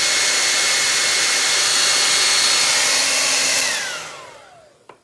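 Handheld hair dryer blowing steadily, with a thin whine from its fan motor. About three and a half seconds in it is switched off and its pitch falls as the fan spins down and the rush of air fades away.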